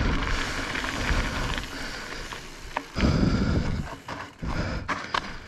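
Mountain bike being ridden hard: wind rushing over the microphone and tyre rumble on the trail, with a few sharp knocks and rattles from the bike.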